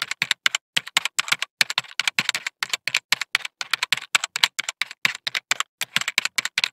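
Typing sound effect: a rapid, uneven run of keystroke clicks, about six a second, keeping time with on-screen text being typed out letter by letter.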